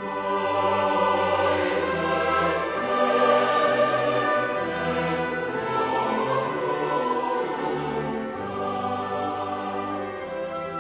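Classical orchestral music with a choir singing.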